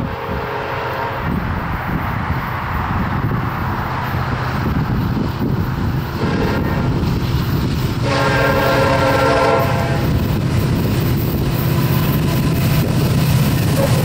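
Nathan AirChime K5LLA five-chime horn on a Norfolk Southern SD70M-2 diesel locomotive, sounding several blasts as the train comes up to a grade crossing. The longest and loudest blast comes about eight seconds in. Under the horn, the rumble of the locomotives' diesel engines grows louder as they approach.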